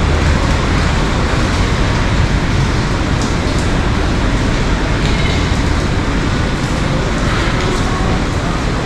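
Heavy rain falling on a city street, with a steady low rumble of road traffic.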